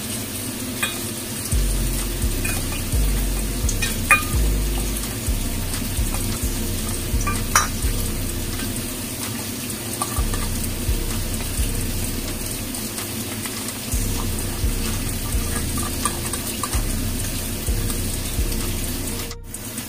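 Metal spoon stirring a thin soy-based sauce in a stainless steel bowl, with a few sharp clinks of the spoon against the bowl, over a steady sizzle of tofu frying in a pan.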